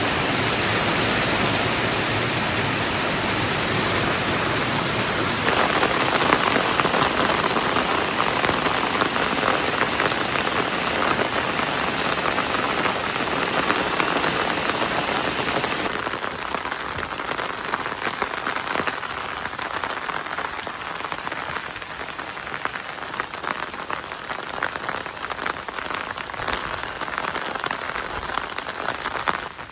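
Steady heavy rain: a dense hiss of countless drops pattering on surfaces, easing slightly from about halfway through.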